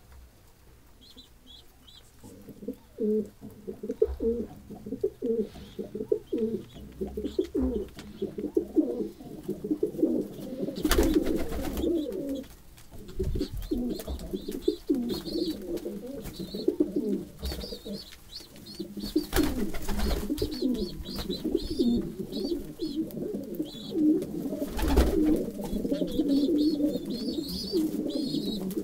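A flock of domestic pigeons cooing, many birds overlapping in a continuous throaty burble that grows fuller after the first few seconds. A few short, sharp wing flaps break in around the middle and near the end.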